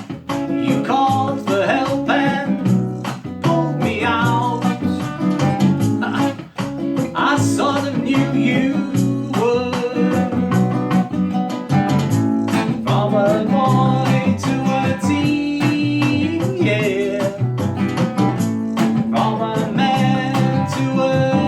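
Instrumental break of a song: acoustic guitar played over a drum-and-bass backing track in a Latin rhythm, with a melodic lead line.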